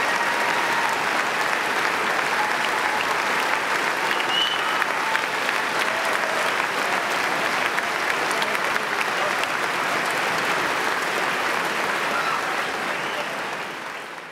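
Large audience applauding steadily, with a few voices cheering over the clapping. The applause fades out near the end.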